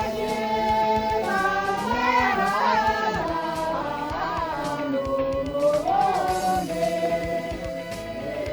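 A group of voices singing together in unison, holding long notes that bend and slide between pitches, with light clapping or percussive taps underneath.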